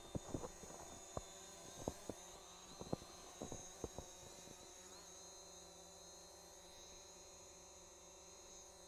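Faint, steady high-pitched whine of a quadcopter drone's motors and propellers, with a scatter of light clicks and knocks in the first four seconds.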